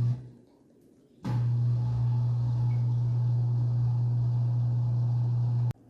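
Beko dishwasher running its machine-cleaning cycle: a steady low hum that starts abruptly a little over a second in and cuts off suddenly near the end.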